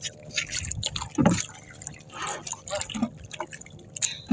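Sea water splashing and dripping in irregular bursts as a wet fishing line is hauled in hand over hand over the side of a small wooden outrigger boat.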